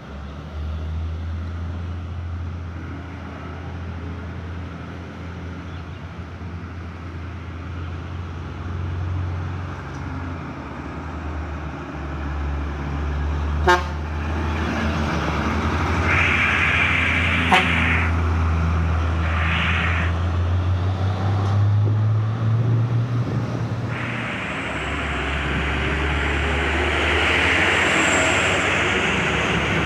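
Heavy diesel trucks running in traffic: a steady low engine drone, with two sharp clicks partway through and stretches of hiss.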